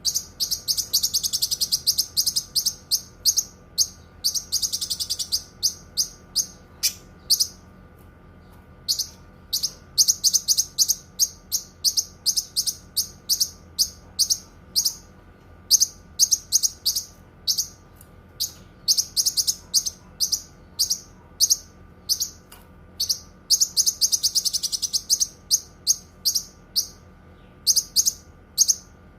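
Cucak kinoi singing: quick runs of sharp, high chirps broken by a few fast trills, with brief pauses about eight seconds in and again near the middle. A faint steady hum lies underneath.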